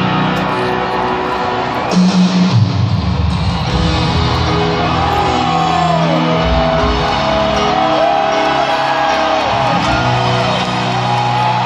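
Live rock band playing in a large arena, heard from the stands: held keyboard chords with sliding, arching guitar notes over them from about five seconds in.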